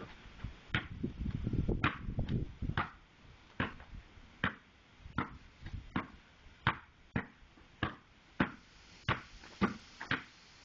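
Basketball being dribbled on a concrete slab: a steady run of sharp bounces, roughly one every half second or so.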